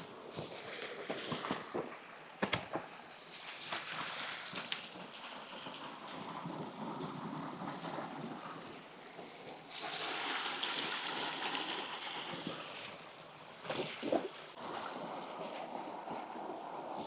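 Stream water running, with a few sharp knocks; the water noise grows louder for about three seconds past the middle.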